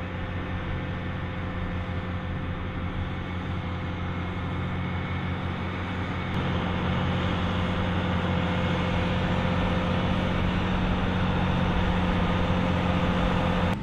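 Case IH Magnum tractor's diesel engine running steadily while hauling a loaded slurry tanker, a constant drone at one pitch that grows a little louder from about halfway as the tractor comes closer.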